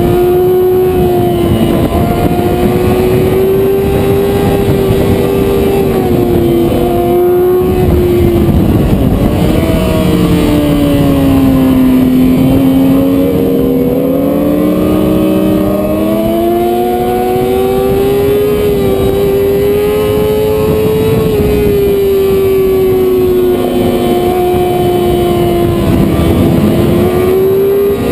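Sportbike engine running hard on a racetrack, heard from the bike itself with wind rush. The engine note holds steady, drops off about eight seconds in as the bike slows for a corner, then climbs steadily as it accelerates out, and dips briefly once more near the end.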